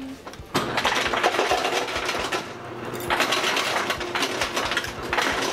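A person slurping and eating ramen noodles from a bowl, a wet crackling slurp in two long stretches of about two seconds each.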